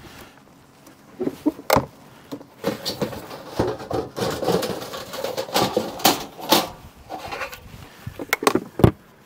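Truck camper's exterior storage-compartment hatch being unlatched and opened, then gear rummaged and shifted inside the bay: a busy run of clicks, knocks and rustling, with a sharp knock about two seconds in and another near the end.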